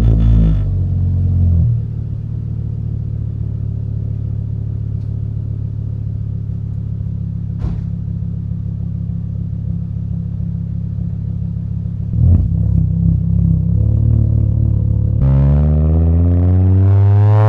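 VW Jetta MK5's 2.5-litre inline-five engine just after starting, revs falling into a steady idle. About twelve seconds in the revs lift briefly, then near the end the engine pulls away under acceleration, its pitch rising steadily.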